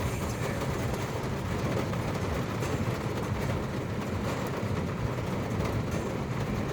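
Heavy hail coming down: a dense, steady clatter of hailstones striking hard surfaces, over a low rumble.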